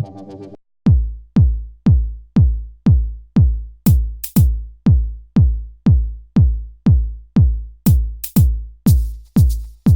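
Electronic dance music: a held synth chord cuts off about half a second in, then a steady four-on-the-floor kick drum comes in at about two beats a second, with a few sharp clap or hi-hat hits over it in the second half.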